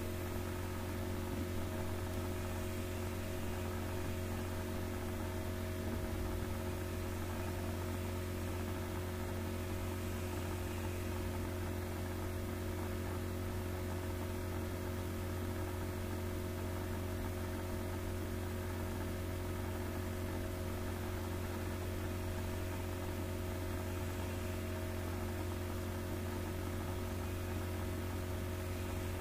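Steady electrical mains hum, a low drone with several fixed higher tones over a faint hiss, unchanging throughout.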